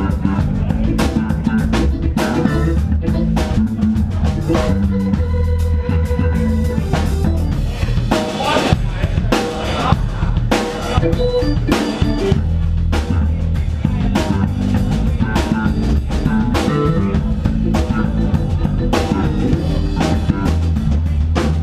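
Live band playing: drum kit keeping a steady beat under electric guitar and keyboard, with a heavy low end.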